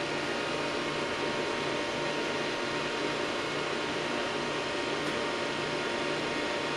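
Steady whirring hiss of electronic equipment cooling fans, with a few faint steady whine tones and a low hum that pulses about twice a second.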